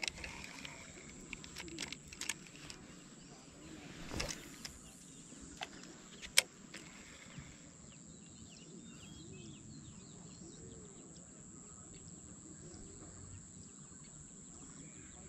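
Scattered clicks and knocks from handling a spinning rod and reel during and after a cast, the sharpest click about six seconds in, then quiet lakeside background.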